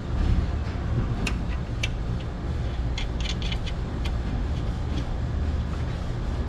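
A steady low machine hum, with a few small sharp clicks and taps as a plastic condenser fan blade is handled and pushed onto the fan motor's shaft, a cluster of them a little past halfway.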